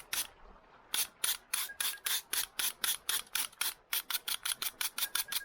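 Hand file rasping a wooden axe handle in quick back-and-forth strokes, about four to five a second, after a brief pause at the start. The handle is being shaped down to fit the axe head.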